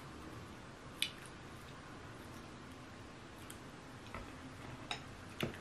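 Quiet mouth and hand eating sounds from eating eba and egusi soup by hand: soft wet clicks and squishes as the eba is handled and chewed, with one sharp click about a second in and a few more near the end.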